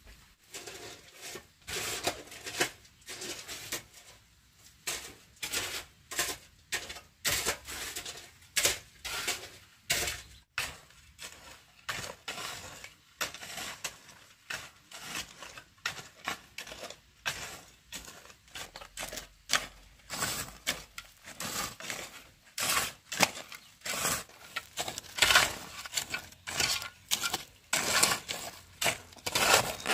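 Steel shovels scraping and turning a dry mix of cement powder and gravel on the ground, a gritty scrape one or two times a second.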